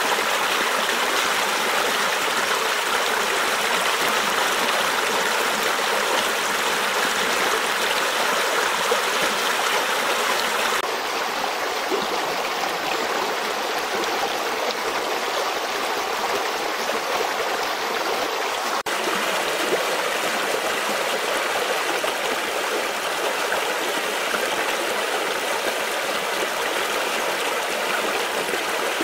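Spring-flood stream rushing and splashing over stones, a steady rush of water with no let-up. Its tone shifts slightly about eleven seconds in and again near nineteen seconds.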